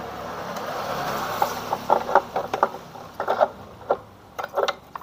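A rushing whir fades out about a second and a half in. A string of irregular metallic clicks and clinks follows, from parts being handled and fitted during reassembly of a scooter's rear CVT.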